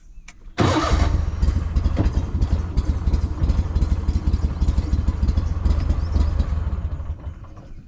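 Small boat motor running steadily with a rough, clattery note. It comes in abruptly about half a second in and drops away near the end.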